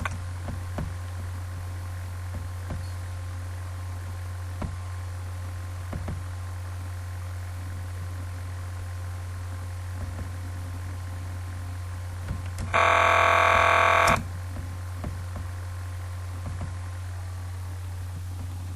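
A steady low electrical hum with faint scattered clicks, broken about two-thirds of the way in by a single loud, steady electronic buzz lasting about a second and a half.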